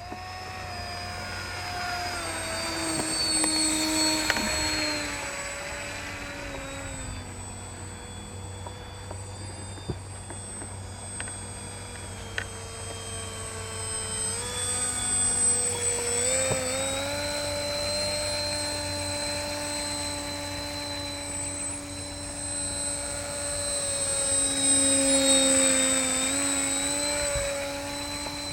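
Radio-controlled autogyro in flight: a steady motor whine that shifts in pitch with the throttle, dropping and rising several times. It grows louder as the aircraft passes close, about four seconds in and again near the end.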